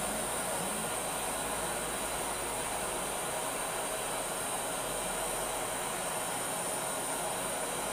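Gas brazing torch flame hissing steadily while a copper refrigerant pipe joint on an air-conditioner outdoor unit is brazed with a filler rod.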